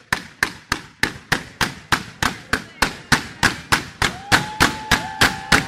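Fireworks going off in a rapid, even string of sharp bangs, about three a second, as a volley of aerial shells bursts in white stars. A steady whistling tone comes in near the end.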